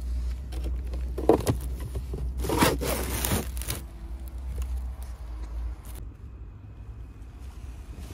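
Plastic scraping as the black plastic sections of an Ubbink Cobra crawl-space ventilation duct are slid together by hand: a short scrape just over a second in, then a longer, louder one about two and a half seconds in. A low rumble runs underneath and stops about six seconds in.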